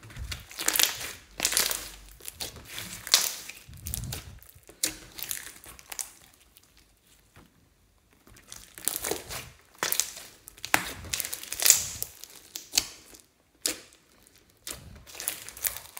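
Hands stretching, folding and pressing clear slime loaded with glitter and beads, making sticky squishing and crackling sounds in irregular bursts, with a short pause about eight seconds in.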